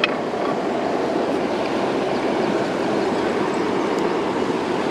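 Steady rush of a river flowing over rocks at the water's edge, with one sharp click at the very start.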